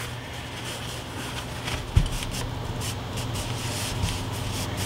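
Room air conditioner running with a steady hum, under the rustle of a paper towel being handled and smoothed flat on a cutting mat, with a thump about two seconds in.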